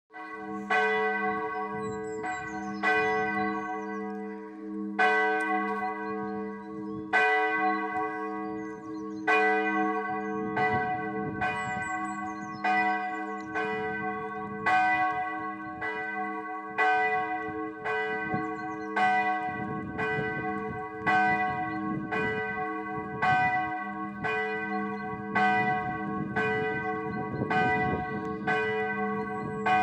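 Church bell ringing in a wooden belfry, swung and struck about once a second, its tones ringing on between strokes.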